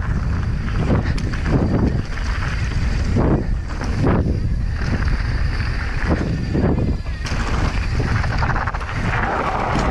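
Wind buffeting the microphone of a camera on a moving mountain bike, a steady low rumble with irregular gusty surges, mixed with the tyres rolling over a loose gravel trail.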